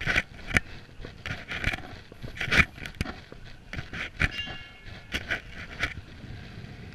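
Footsteps of a person walking at an even pace, about two steps a second, each step a short gritty crunch with an occasional brief squeak. The steps stop about six seconds in.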